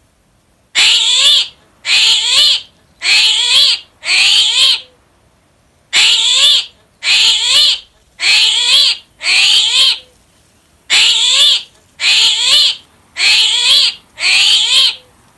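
An animal call, high-pitched and about half a second long, repeated twelve times in three sets of four with short pauses between the sets.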